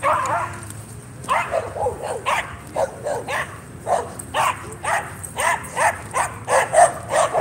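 Two huskies play-fighting, giving a rapid string of short yips and barks, about three a second, each bending up and down in pitch.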